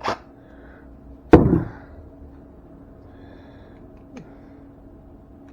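A single loud knock about a second and a half in, with a short ringing tail, then a faint click later: tools or parts being handled and set down while a receptacle is wired.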